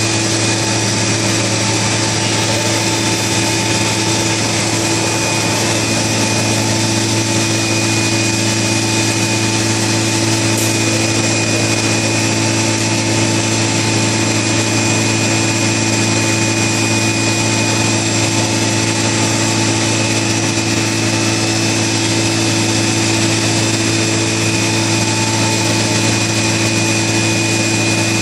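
Yuan Lung YL-15302-R+B CNC router running as it machines wood panels: a steady spindle whine over a constant low machine hum, with no breaks.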